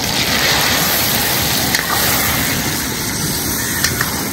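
Hot oil sizzling steadily in an iron wok as small pieces of food fry, with a couple of sharp pops.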